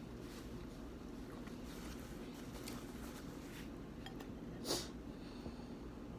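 Quiet eating sounds: soft chewing and small mouth and utensil clicks over a steady low hum, with one sharper click about three-quarters of the way through.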